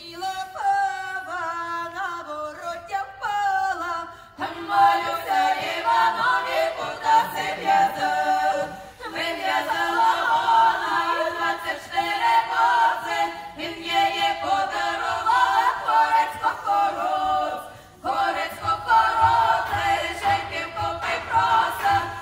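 A group of women singing a cappella in harmony. A single voice starts, several voices join about four seconds in, and the singing pauses briefly twice before a low pulse comes in near the end.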